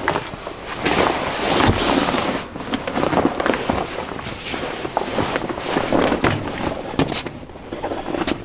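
Fabric carry bag rustling and scraping against the folded pop-up ice shelter as the shelter is pulled out of it, in a run of irregular scratchy swishes.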